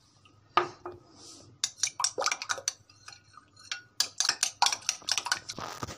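Raw eggs being beaten in a glass bowl with a metal utensil: quick runs of sharp clicks of metal against glass, starting about a second and a half in, after a single knock.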